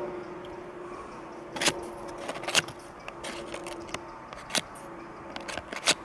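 Victorinox steel scissors worked open and shut, the blades giving a few sharp metallic clicks at irregular intervals. The blades still close smoothly after the abuse test. A faint steady hum sits underneath.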